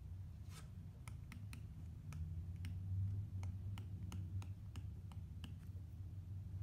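Apple Pencil's hard plastic tip tapping and clicking on the iPad Pro's glass screen during handwriting: a few light, irregular clicks a second over a low steady hum.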